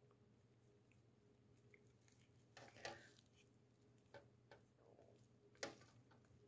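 Near silence: a few faint clicks and rustles of small metal jewelry pieces and an alligator clip being handled under a brush-plating pen, over a very faint steady low hum.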